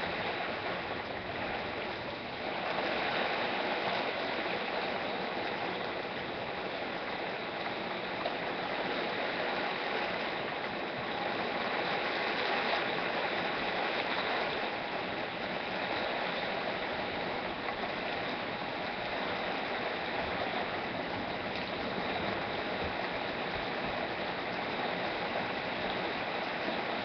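Heavy rain pouring down steadily as a continuous hiss, growing a little louder about two and a half seconds in.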